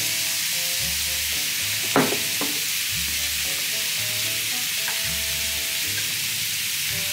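Food sizzling on a tabletop barbecue grill, a steady hiss throughout, over background music with a slow beat. A short squeak sweeps up and down about two seconds in.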